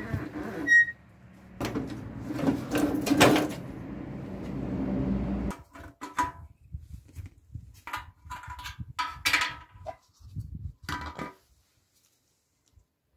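Rattles and knocks of an old motorcycle being pushed and handled with its engine off. After that come separate metallic clinks and taps, with a short ringing tone, as the steel fuel tank's cap is opened and a funnel set in the filler.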